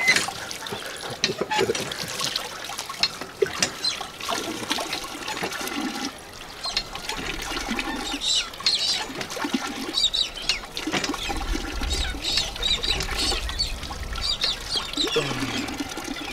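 Water from a hand-operated lever pump pouring from the spout and splashing as someone washes their hands and face under it, while the pump handle is worked.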